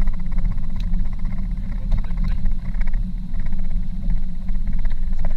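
Steady road and engine noise of a car being driven, heard from inside the cabin: a loud low rumble.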